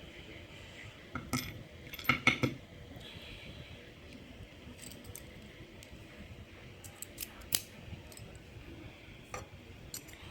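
Light metallic clicks and clinks of small lock parts and tools being handled on a bench: a padlock's lock cylinder with its pins. The sharpest cluster of clinks comes about two seconds in, with a few lighter ticks scattered later.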